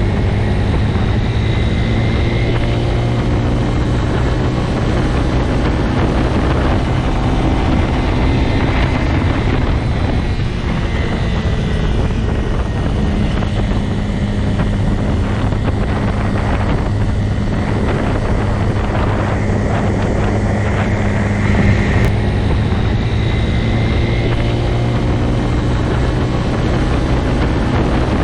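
Motorcycle engine running at steady revs, a constant drone that swells slightly now and then.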